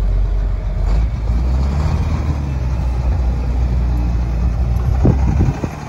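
GMC C7500 work truck's Duramax V8 diesel engine running as the truck drives slowly past, a steady low engine note that eases a little near the end.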